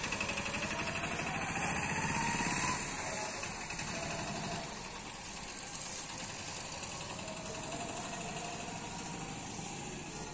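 An unseen engine running steadily, with a rising whine over the first three seconds, then a little quieter.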